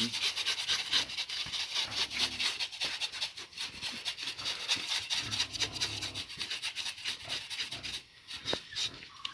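Bristles being scraped off a scalded pig's hide, in quick rasping strokes several times a second.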